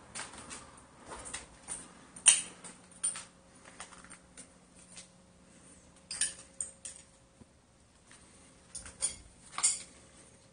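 Footsteps crunching and scuffing over a debris-strewn floor: irregular clicks and crunches, the sharpest about two seconds in and a cluster near the end.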